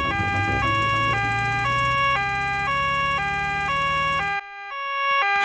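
Cartoon two-tone emergency siren, switching between a high and a low note about every half second, over a low vehicle engine hum. The hum cuts off near the end while the siren keeps sounding.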